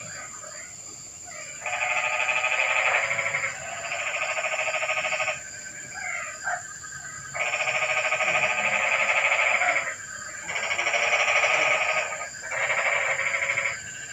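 Frogs calling in long, rapidly pulsed trills, five bouts of about two seconds each with brief gaps and a few short chirps in the middle, over a steady high-pitched thin tone.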